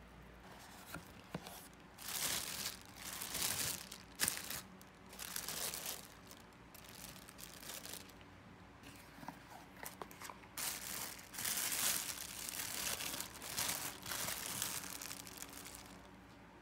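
Plastic packaging film crinkling and tearing as boxes are unpacked and opened by hand, in irregular bursts starting about two seconds in.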